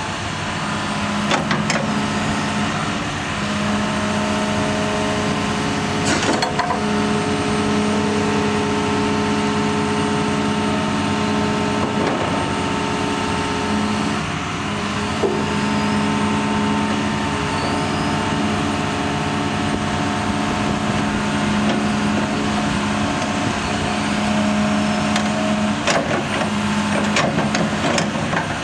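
2018 John Deere 210 LC hydraulic excavator's diesel engine running at a steady speed, with occasional sharp knocks and clanks from the machine.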